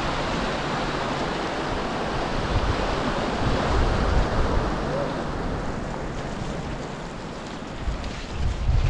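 Steady rushing of wind and road noise on a moving motorcycle, with low buffeting of wind on the microphone here and there.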